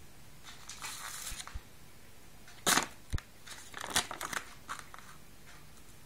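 Clear plastic food tray and wrapping crinkling and crackling as they are handled, in several short bursts with a sharp knock, the loudest a little under three seconds in.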